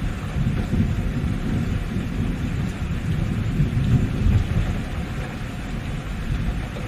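Steady rain with a low, rolling thunder rumble under it. The rumble swells about four seconds in and eases toward the end.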